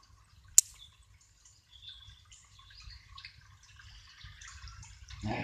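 Light rain pattering and dripping close to the microphone, with one sharp tap a little after the start.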